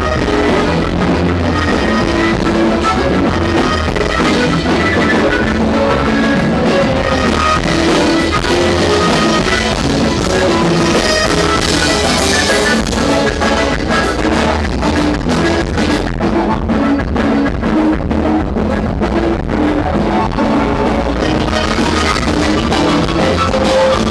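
Live norteño band playing: button accordion, acoustic guitar, electric bass and drum kit, with a steady beat.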